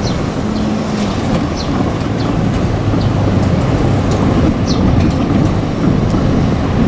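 JR Kyushu 817 series electric train rolling past at low speed: a steady rumble of wheels on rail, with a few brief high squeaks from the wheels.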